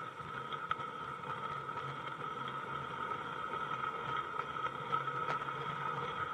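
A 16mm-scale garden railway train running, heard from one of its wagons: a steady whine from the running gear, with a few short clicks as the small wheels pass over the track.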